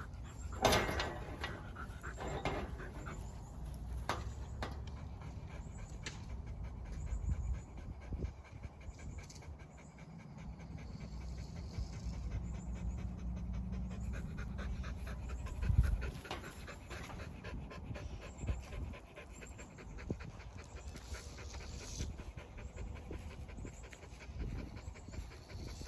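Puppy panting steadily after tugging on a rag, with one louder knock about halfway through.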